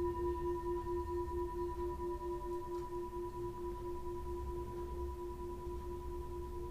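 Singing bowl ringing on after a single mallet strike: a steady low hum with a fainter higher overtone, wavering in an even pulse and slowly fading.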